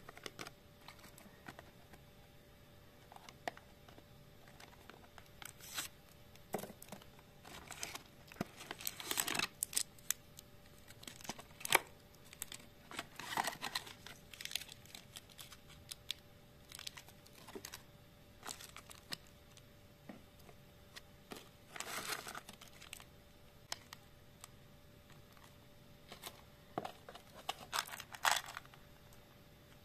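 Plastic and foil sweet wrappers crinkling and rustling in irregular bursts as they are handled, with a few sharp clicks of packaging.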